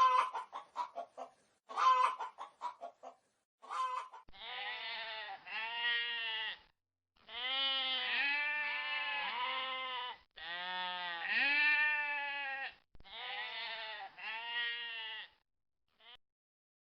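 A chicken clucking in short bursts, then a run of about five drawn-out, wavering bleats from a farm animal, each rising and falling in pitch.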